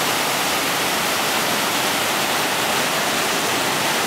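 Steady rush of whitewater pouring over a boulder drop into the pool below, an even unbroken hiss.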